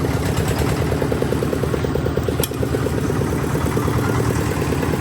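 An engine running steadily at a constant speed, with a fast, even beat. There is a single short click about halfway through.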